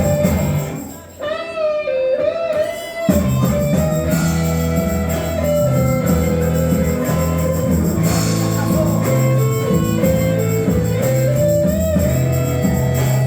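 A small band playing a song live: guitar over a steady bass line, with a held melody line above. The bass drops out about a second in and comes back about three seconds in.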